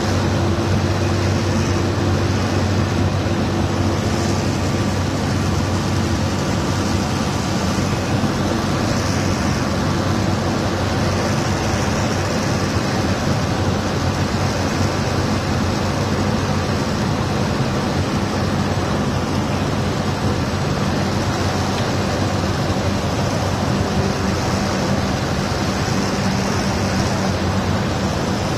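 Cessna 208 Caravan's Pratt & Whitney Canada PT6 turboprop engine and propeller running steadily on approach for landing, heard inside the cockpit together with airflow noise: an even, loud drone with a low hum.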